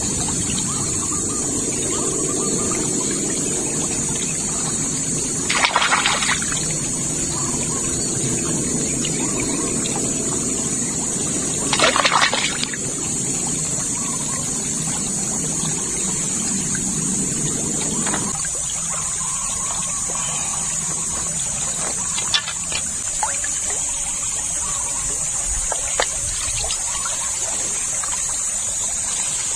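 Shallow rocky stream running steadily, with two short, louder noises about six and twelve seconds in.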